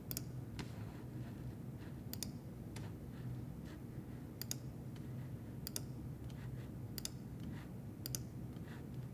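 Sharp, light clicks from a new Apple laptop being operated by hand, mostly quick double clicks about one every second or so, with fainter ticks between.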